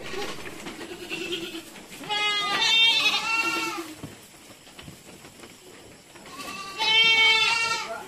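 Goats bleating: a low call at the start, then two loud bleats, one about two seconds in and one near the end.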